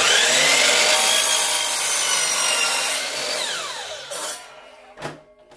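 Electric miter saw spinning up and crosscutting a 1x6 wooden board, a high motor whine over the noise of the cut. About three seconds in the blade is released and winds down with a falling whine, and a single knock follows near the end.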